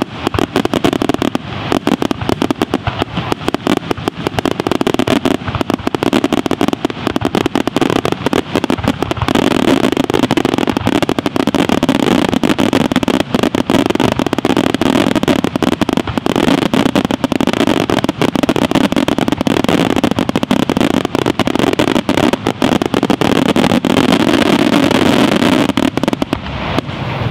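Aerial fireworks display in a dense, unbroken barrage of rapid, overlapping bangs from shells launching and bursting. It stops just before the end, and the echo dies away.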